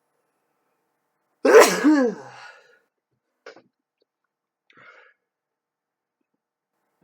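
A person sneezing once, loud, about a second and a half in, with the voice sliding down in pitch as the sneeze trails off. Two faint short sounds follow a second or two later.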